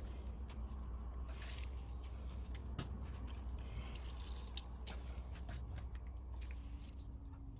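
Chopped cabbage squeezed by hand over a plastic colander: faint, scattered drips of its pressed-out water and soft rustles of the pieces.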